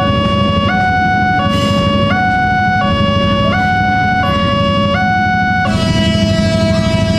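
Electronic railway level-crossing alarm sounding its new two-tone high-low chime, switching tone about every 0.7 s, over a low rumble of traffic and a passing electric commuter train. Near the end the alternation stops and a single tone is held.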